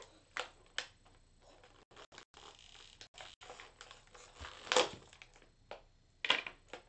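Scattered light clicks and rustles of handling, with two louder rustling knocks about five and six seconds in.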